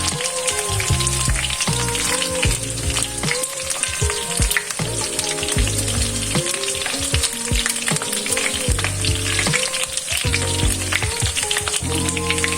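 Food frying in hot oil, a steady sizzle with dense crackling, over background music.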